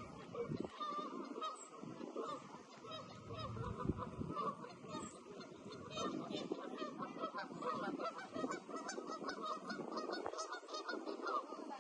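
A flock of geese honking, many short overlapping calls one after another.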